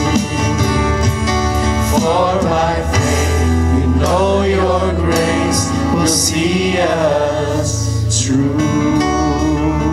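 Live worship band playing a gospel song: singing over electric guitar and a steady bass line.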